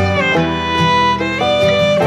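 Instrumental background music led by a fiddle playing sustained, sliding notes over a light guitar accompaniment.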